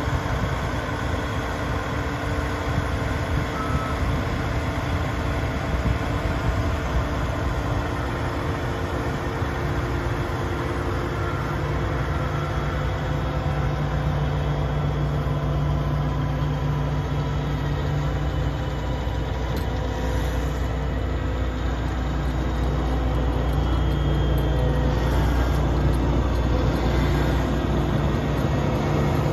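John Deere S780 combine's diesel engine running steadily. A deeper, stronger hum comes in about twelve seconds in and holds.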